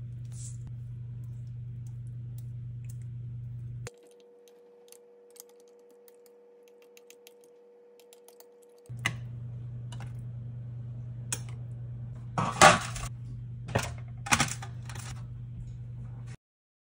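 Metal spoon scraping and tapping against a glass baking dish while spreading sauce, the loudest clatter a few seconds after the middle, over a steady low hum. A brief spice-bottle shake comes right at the start.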